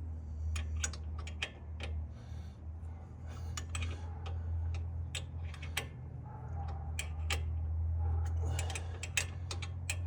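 Ratchet wrench clicking in short irregular runs while tightening the new brake caliper bolts, with sharp metallic ticks of the tools, over a steady low hum.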